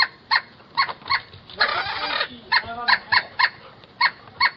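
Baby pileated woodpecker calling over and over: short, high, clean calls about three a second. A brief burst of noise comes about a second and a half in.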